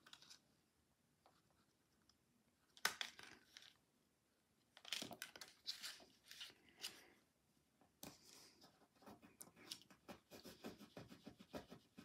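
Faint rustling and scraping of cardstock being handled, folded and pressed flat by hand, in short scattered bursts with near silence between.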